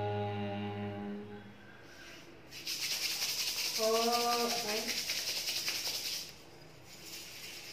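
A man's held chanted tone fades out in the first second or so. From about two and a half seconds in, palms are rubbed together briskly for about three and a half seconds, a dry rasping hiss, with a brief vocal sound about four seconds in.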